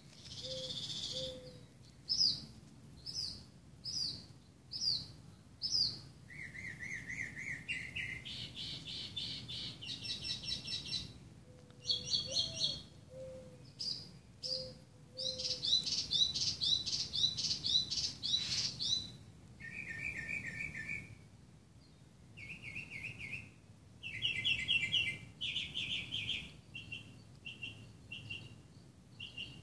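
Northern mockingbird singing: a long string of varied phrases, each repeated several times in quick succession before switching to a new one.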